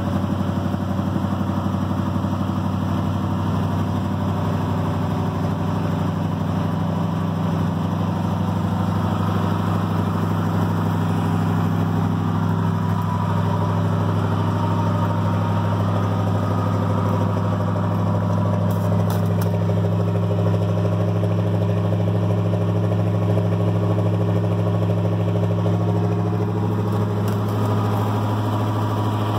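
1980 Chevrolet Cheyenne's original 454 big-block V8 idling steadily, just after a frigid cold start in which it caught after two pumps of the gas pedal.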